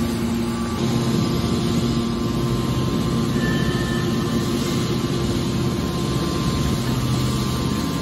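Hydraulic scrap metal baler's power unit running with a steady, even hum.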